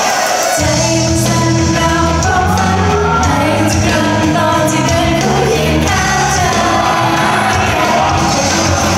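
Live idol-pop performance: a loud pop backing track with female group vocals singing over it. The bass drops out for about the first half second, then comes back in.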